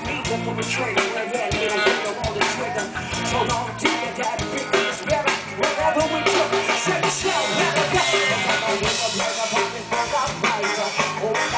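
Live rock band playing an instrumental passage with no vocals, the drum kit hitting a steady beat under sustained instruments.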